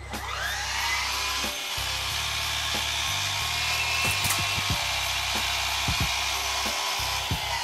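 Milwaukee cordless brushless sliding miter saw motor and blade spinning up with a rising whine, running steadily at full speed, then starting to wind down at the very end.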